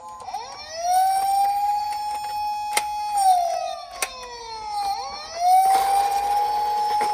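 Electronic wail siren of a toy emergency-vehicle minicar. The tone rises quickly, holds steady for about two seconds, sinks slowly, then rises and holds again. Two sharp clicks come in the middle.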